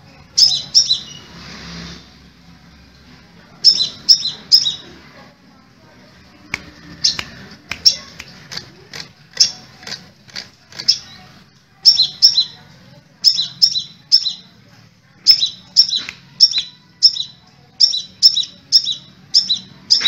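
Caged crimson sunbird (sepah raja) calling: short, sharp, high chirps given in quick pairs and triplets, repeated dozens of times, with brief lulls in the first third and dense chirping through the second half.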